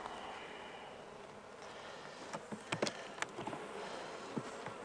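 Honeybee colony buzzing steadily in an open hive, with a few sharp clicks and knocks about halfway through as the wooden frames and metal hive tool are handled.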